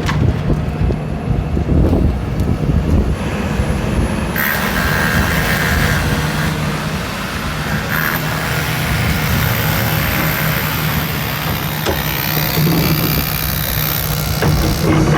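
Hydraulic excavator's diesel engine running steadily under load, with a hiss coming in about four seconds in and a rising whine near the end as the machine works.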